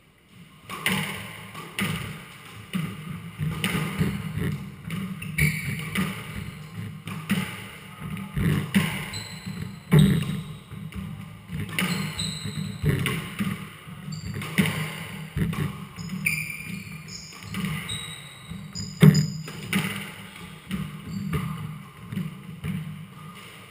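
Squash rally: the ball cracking off the rackets, the front wall and the floor in quick, irregular succession, ringing in the enclosed court, with short high squeaks of court shoes on the wooden floor. The loudest hits come about ten seconds in and again a little before twenty seconds.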